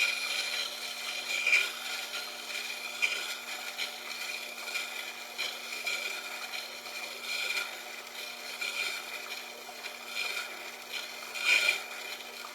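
A steel drill bit being ground against the Tormek T-8 wet sharpener's turning grindstone: a continuous rasping scrape that swells and eases, over the machine's steady motor hum.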